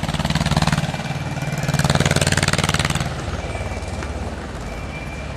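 A vehicle's engine running with a rapid, even pulse, louder for the first three seconds or so, then steadier and a little quieter.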